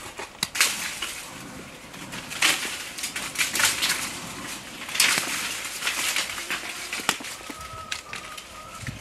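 Crunching and clacking of green walnuts, husks and dry leaves on bare dirt as walnuts are gathered from the ground, in irregular bursts with the loudest about half a second, two and a half, and five seconds in.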